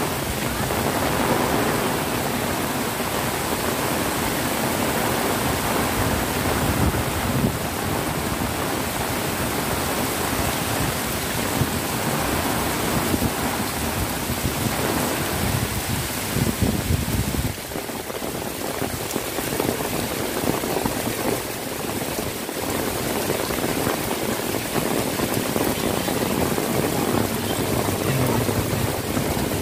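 Heavy rain pouring steadily onto a paved road and pavement: a loud, dense hiss.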